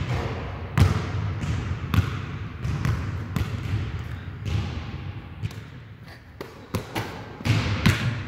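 Basketball bouncing on a court: irregular thuds roughly once a second, a few coming closer together near the end.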